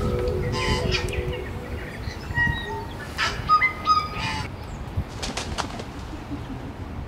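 A flock of birds flapping up into flight, with bursts of wingbeats and several short honking calls, over a steady low rumble.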